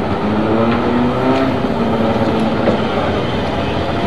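Indy car engines running, a steady drone whose pitch drifts slowly, over a constant wash of background noise.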